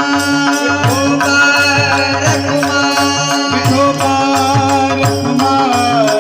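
Marathi kirtan music: a steady drone under a melody, kept in time by a repeating hand-drum rhythm.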